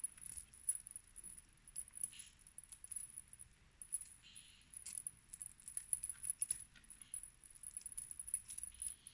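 Faint, scattered light clicks and jingling rattles, irregular and spread through the whole stretch.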